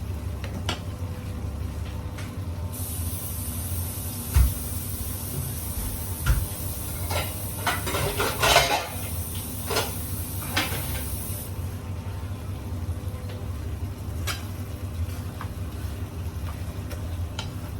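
Baby bok choy being stirred into sautéed sardines in a pan: a spatula knocks and scrapes against the pan, with the loudest knocks around the middle. A high sizzling hiss runs for several seconds in the middle, over a steady low hum.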